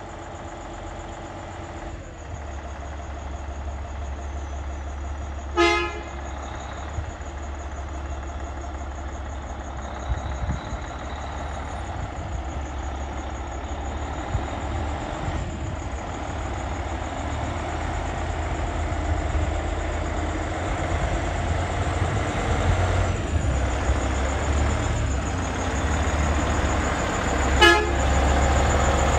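Peterbilt semi truck's diesel engine rumbling as it rolls slowly toward the listener, growing louder as it nears. Two short horn toots, one about six seconds in and one near the end.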